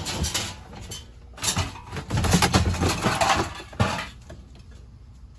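Pieces of scrap metal clanking and clattering against each other as they are handled and dropped, in a short burst at the start and a longer, louder run from about a second and a half in until about four seconds.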